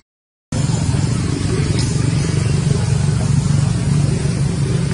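A small engine running steadily at a constant low rumble, starting abruptly after half a second of silence.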